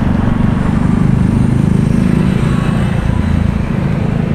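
Street traffic with a motor vehicle's engine running close by, loud and steady, easing off slightly near the end.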